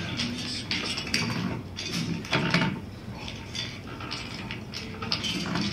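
Small hard building parts clattering and clicking as several hands sort and fit them together on a tray, in a quick, irregular run of clicks.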